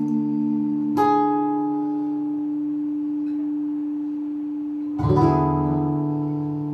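Acoustic guitar playing the closing chords of a samba: a strummed chord about a second in that rings and slowly fades, then a louder final strummed chord near the end that is left ringing.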